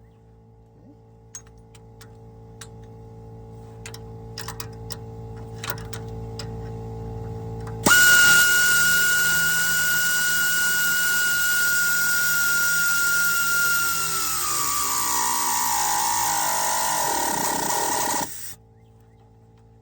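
Cordless power tool's motor: a few light clicks, then a loud steady whine starts suddenly about eight seconds in, drops in pitch after several seconds as if slowing under load, and cuts off.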